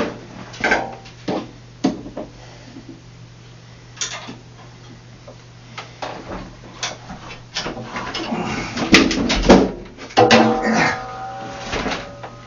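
Metal knocks and clanks as a washing machine's tub suspension springs are strained and hooked against the sheet-metal cabinet. The clanks are heaviest in the second half, with a brief metallic ringing after one loud knock near the end, over a steady low hum.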